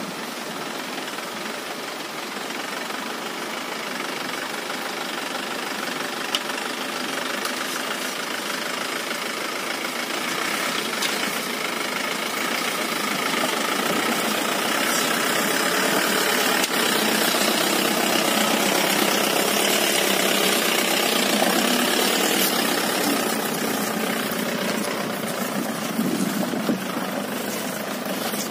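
Jeep engine running as it drives through a shallow, rocky river. It grows gradually louder as the jeep approaches and eases off slightly near the end.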